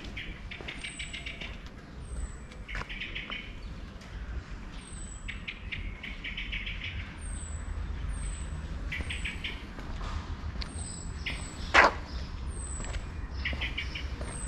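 Songbirds calling: one repeats a high, thin down-slurred note about once a second while another gives short bursts of rapid rattling trills, over a steady low rumble. One sharp click stands out near the end.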